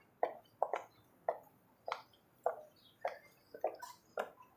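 High-heeled shoes clicking on stone paving at each step, in an even walking rhythm of a little under two steps a second.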